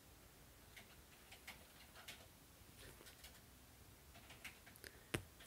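Near silence with faint, scattered ticks and scratches of a cat's claws catching on a plush banana toy and couch fabric as it clutches and kicks the toy, and one sharper click about five seconds in.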